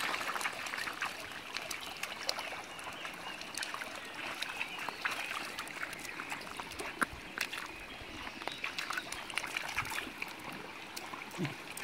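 Shallow stream trickling over stones, with small splashes and clicks from a dog wading in the water.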